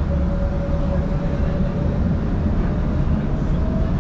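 Dubai Tram running: a steady low rumble with a thin steady whine that fades about halfway through, and a slightly higher whine rising in near the end.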